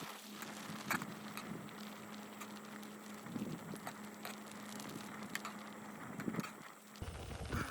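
Pot of instant noodle soup boiling on a camp stove: a steady hissing bubble with scattered small pops and sputters.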